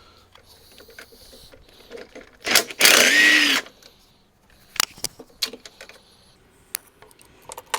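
A handheld power tool runs in one burst of about a second, its pitch rising and then falling. It is followed by a few sharp metallic clicks and knocks of parts being handled.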